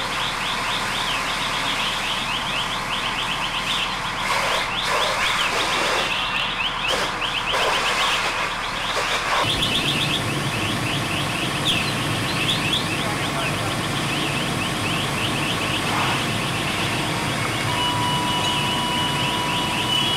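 An electronic alarm chirps rapidly and without a break, several short rising chirps a second. About halfway through, the low engine rumble of an idling fire engine comes in. Near the end a steady electronic beep sounds for a few seconds.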